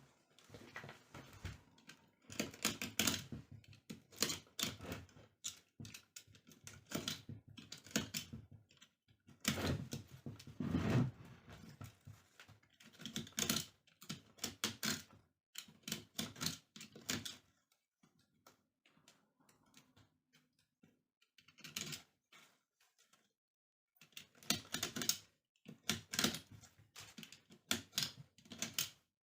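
Rattan cane being worked by hand on a chair: rapid clicking and rustling in bursts a second or two long, with a longer quiet spell about two-thirds of the way through.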